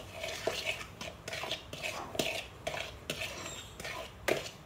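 A spoon clinking and scraping against a bowl while mixing, a run of irregular light clicks and scrapes.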